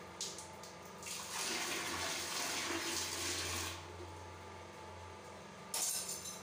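Water running for about two and a half seconds, starting about a second in, over a low steady hum, with a short burst of noise near the end.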